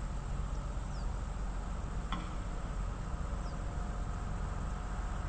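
Steady high-pitched insect chorus of summer evening crickets, with a low rumble beneath it and a single sharp click about two seconds in.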